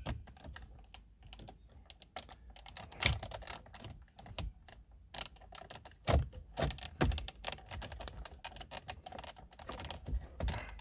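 Plastic dashboard trim being handled and pushed into its clips: a string of irregular plastic clicks, taps and rattles, with a few louder knocks about 3, 6 and 7 seconds in.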